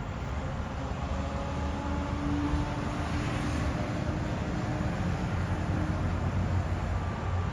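Church bells ringing faintly, long ringing tones at several pitches, over a steady low rumble that is louder than the bells.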